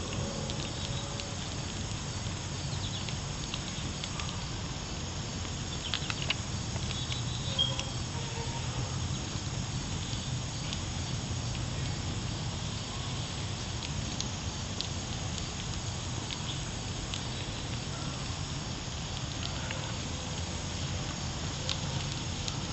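Small charcoal grill crackling and sizzling, a steady hiss with scattered small pops and snaps.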